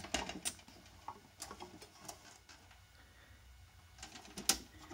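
Faint, scattered light clicks and taps, with one louder click about four and a half seconds in, from fingers handling the thin wires and plastic lampholder and starter parts of an opened fluorescent light fitting.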